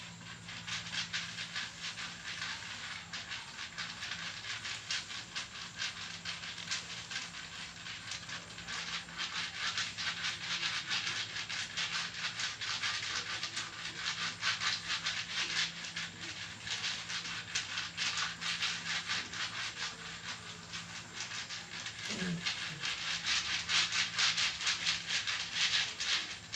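Jinitri (rudraksha) seeds rattling and clicking against one another as they are worked over a patient's body in a massage, a dense, continuous rattle that grows a little stronger toward the end and then stops. A low steady hum runs underneath.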